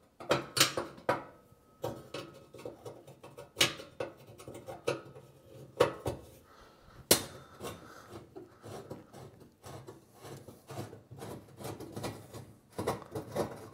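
Phillips screwdriver backing a screw out of the sheet-metal oven floor: irregular metallic clicks, clinks and scraping, with a few sharper knocks.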